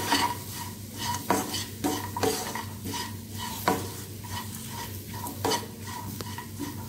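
Wooden spatula stirring a thick onion-tomato-coconut masala in a nonstick kadai, with repeated scrapes and taps on the pan about one to two a second. Under it, a light sizzle as the masala keeps frying in the pan's leftover heat after the stove is switched off.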